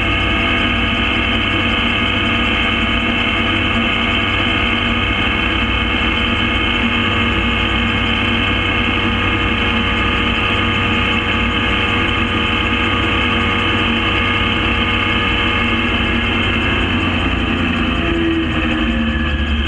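Gyrocopter engine and propeller running steadily at cruise, pitch easing down slightly near the end.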